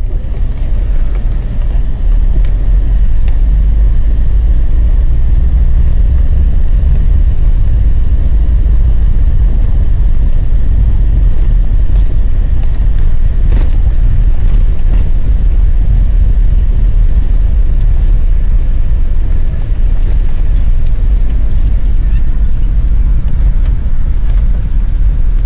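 Steady low rumble of road and tyre noise inside the cabin of a moving car on the highway.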